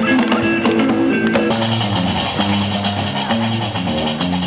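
Live Gnawa music: a guembri plays a repeating bass line with handclaps over it. About a second and a half in, the metal qraqeb castanets come in with a dense, steady clatter.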